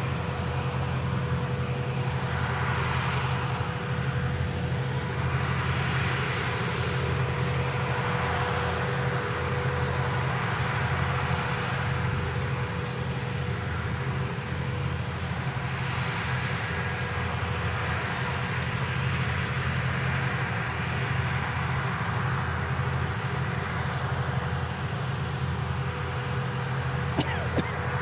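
Steady high trilling of field insects over the low, even drone of Palesse GS12 combine harvesters working in the distance.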